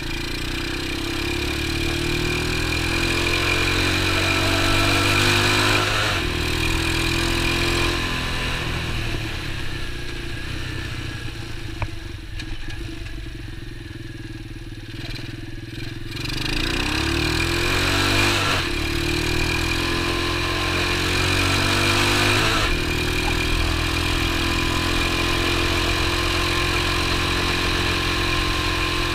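X19 super pocket bike's small engine running as it is ridden, the revs rising and falling with gear changes. It eases off to a quieter stretch about a third of the way in, then picks up again a little past halfway, with a couple of brief dips between pulls.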